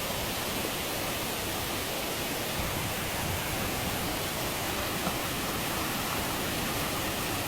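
Steady, even hiss of rushing water, unchanging throughout.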